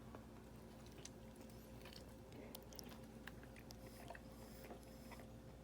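Faint chewing: small wet clicks and smacks of someone eating a burrito, over a low steady hum, close to silence.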